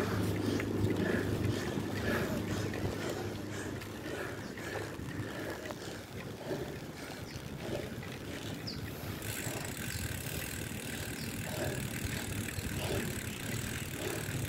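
Pinarello Dogma road bike rolling over a rain-wet concrete street: a steady hiss of tyres on the wet surface mixed with wind on the microphone, the hiss turning brighter about nine seconds in.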